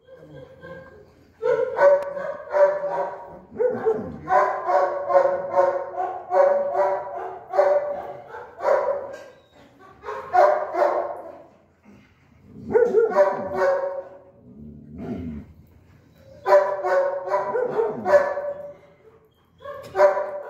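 A dog barking repeatedly in bouts of several quick barks with short pauses between.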